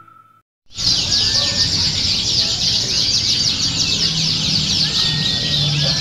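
Domestic canary singing: a long, fast, unbroken run of high trills and chirps that starts abruptly under a second in.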